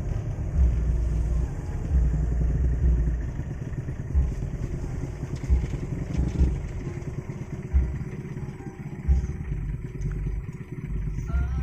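A vehicle running, a steady low rumble with irregular low thumps.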